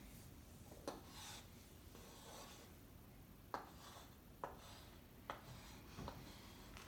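Chalk writing on a small slate: faint scratching, broken by a handful of short sharp ticks where the chalk taps the surface.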